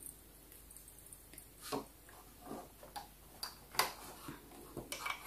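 Light, scattered clicks and taps of small plastic toy pieces being handled and set down in a plastic Sylvanian Families playset, about half a dozen in all.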